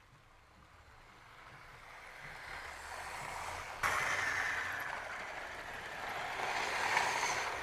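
00 gauge model trains running past on outdoor track. The running noise builds steadily, jumps louder about four seconds in, swells as a train passes, and falls away near the end.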